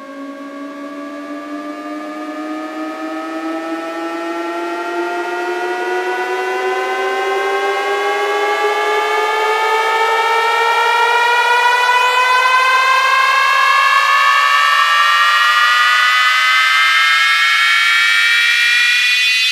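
An electronic riser: a synthesized tone gliding slowly and smoothly upward in pitch and growing louder, with a second tone climbing faster alongside it, the kind of build-up effect that leads into a DJ drop. It tails off near the end.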